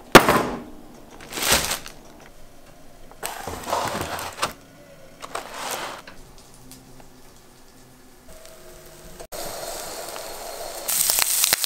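A few short bursts of handling noise as bread and eggs are taken out and set down, then from about nine seconds in a steady sizzle of an egg frying in a slice of bread in a pan, louder near the end.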